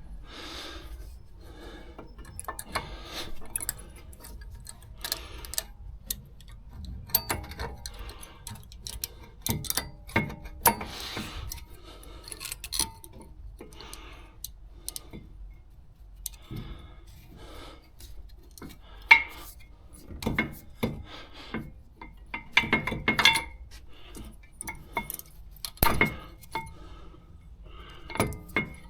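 Metal tools and car parts clinking and tapping as a mechanic works by hand: irregular sharp clicks and knocks, with a louder clank about nineteen seconds in and another near twenty-six seconds.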